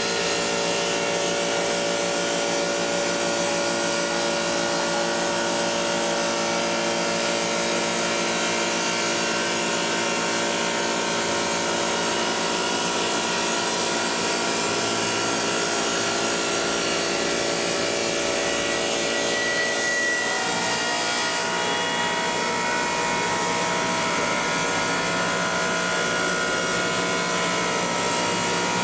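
Dry-process stone V-groover running, its saw motor and dust extraction making a steady whine over a hiss. The pitch of the whine shifts about 20 seconds in.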